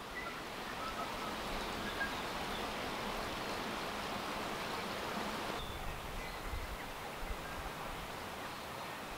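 Bush ambience: a steady rushing background with a few faint, short bird calls scattered through it. The hiss changes in tone about halfway through.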